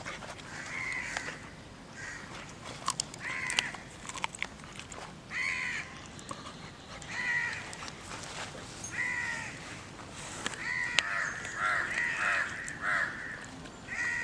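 A crow cawing repeatedly, a harsh call every couple of seconds with a quicker run of caws about eleven seconds in. Between the caws come a few sharp clicks and crunches of a dog biting into a raw chicken.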